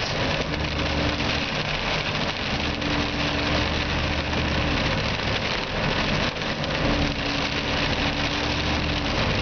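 Inside a car driving through heavy rain: a steady hiss of rain and wet tyres on the road over the engine's low running hum. A steady mid-pitched hum comes and goes three times.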